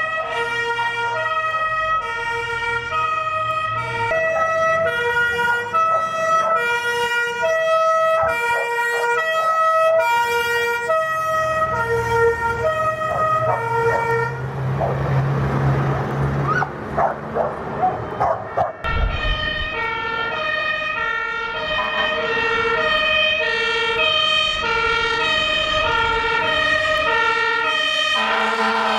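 German fire engine two-tone siren (Martinshorn), switching back and forth between two pitches, with a second siren overlapping at times. About halfway through, the siren gives way for a few seconds to truck engine and road noise, then the two-tone starts again.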